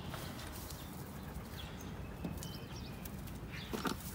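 Footsteps on a dirt and grass shoreline path under the weight of a carried canoe, with a few thuds, while birds chirp faintly in the background.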